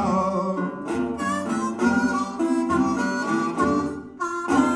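Blues harmonica played into a microphone, held and bent notes, over a steel-bodied resonator guitar; the harmonica breaks off briefly about four seconds in and comes back.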